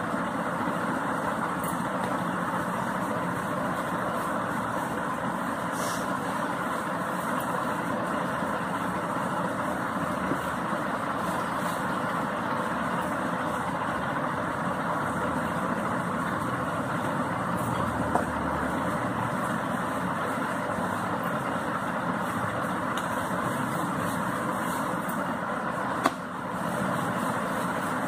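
Steady mechanical drone that stays even throughout, with a single short knock near the end.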